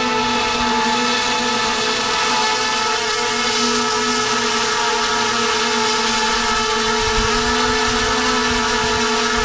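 A folding quadcopter drone's electric motors spinning with a steady whine while it is held in the hand. The drone has just crashed and lost propellers, and the motors are still running because it has not yet been turned off.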